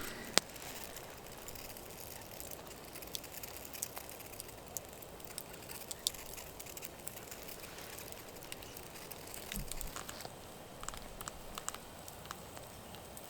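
Campfire crackling under a grill of meat and vegetables, with a soft steady hiss and scattered sharp pops, one louder pop about half a second in.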